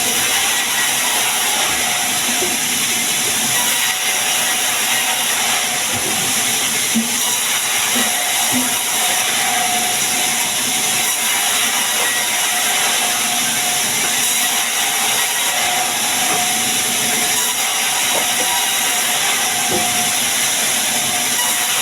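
Sawmill saw running with a steady, loud hiss that holds unchanged throughout.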